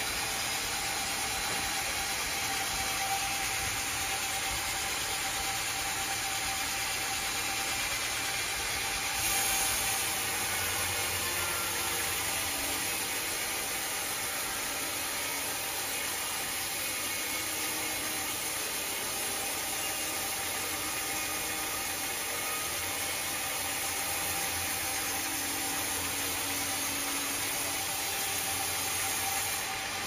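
Large band sawmill running steadily as its blade cuts through a teak log, an even mechanical hiss and hum with a faint steady whine, briefly louder about nine seconds in.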